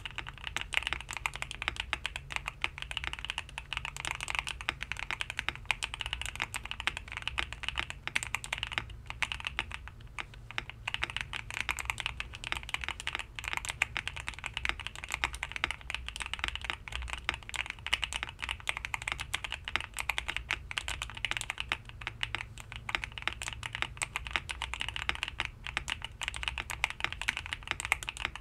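Continuous fast typing on a GMK67 mechanical keyboard whose switches have just been lubed: a dense stream of clacky keystrokes with no breaks.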